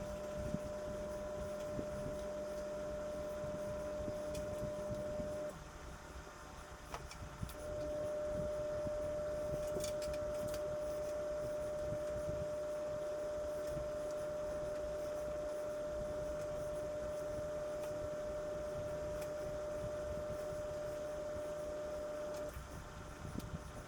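Steady electric hum of a kitchen appliance motor, dropping out for about two seconds after roughly five seconds in and again near the end, with faint soft clicks from handling on top.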